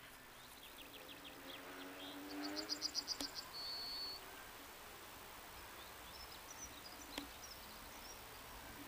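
A small bird sings a quick run of about nine high notes, then a short held high whistle, a couple of seconds in. Underneath, the faint drone of a distant rally car engine dies away early on, and a few soft chirps follow later.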